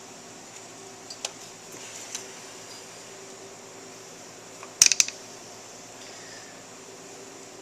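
Metal motorcycle parts being handled during reassembly: a few light clicks, then a sharp double clack about five seconds in, over a steady fan-like hum.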